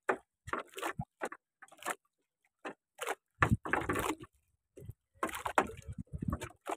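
Wet nylon gill net being hauled by hand over the side into a wooden outrigger boat: irregular short bursts of rustling and splashing with brief pauses between pulls.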